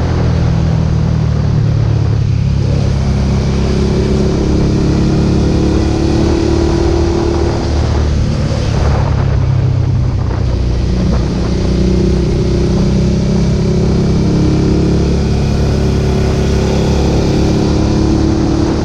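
Suzuki SV650's 645 cc V-twin running through a Roadsitalia aftermarket exhaust with the db-killer fitted, heard while riding, its note rising and falling a little with the throttle.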